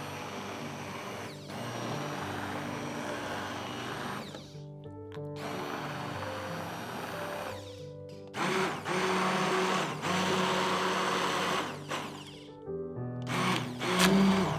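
Immersion hand blender puréeing a pot of cooked vegetable soup, its motor running in four runs with short pauses between them, over background music.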